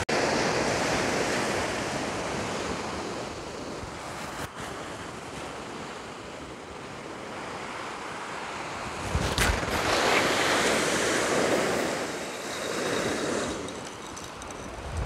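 Surf breaking on a sandy beach, the wash swelling and fading as the waves come in.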